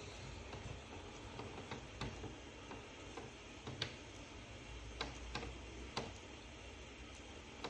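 Faint steady hiss of mains water passing through a Worcester Bosch boiler's key filling link as the heating system's pressure is topped up, with about ten light clicks at irregular spacing.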